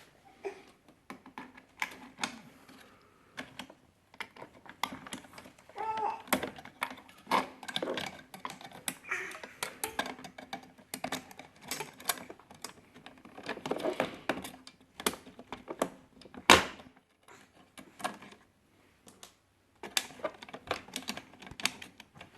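Hands working on a Maxi-Cosi FamilyFix car seat base: irregular clicks, knocks and rattles of its plastic parts as it is handled during the latch-cable repair, with one louder knock about three quarters of the way through.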